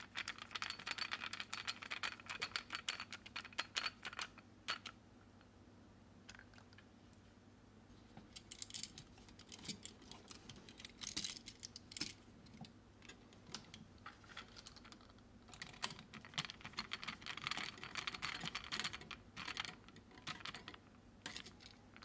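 Small metal clicks and scrapes of a screwdriver tightening the terminal screws of a wall outlet, with the wires and outlet being handled. The clicking comes in two runs, one at the start and one past the middle, with a hush of a few seconds early on.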